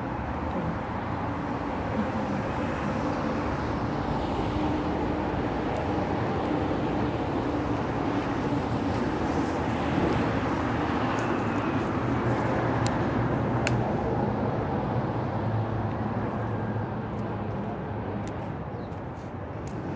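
Steady rumble of passing vehicle traffic with a low engine hum that swells around the middle and eases off near the end.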